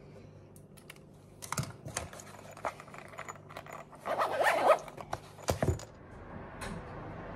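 A small black case and a pen-like object being handled on a table: scattered clicks and taps, with a short, louder rasping scrape a little after four seconds in.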